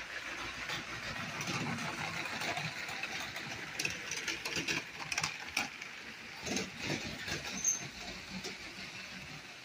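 Two battery-powered Lego trains running on plastic track: a steady whir of their motors and wheels, with scattered clicks and rattles as they roll over the track. The clicks are thickest in the middle of the run and thin out near the end.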